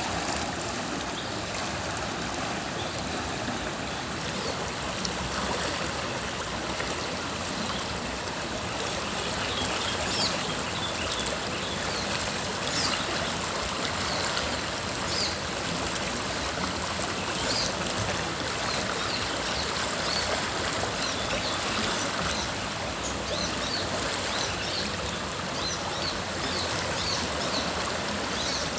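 River water flowing and burbling steadily over stones, with short high chirps scattered through the second half.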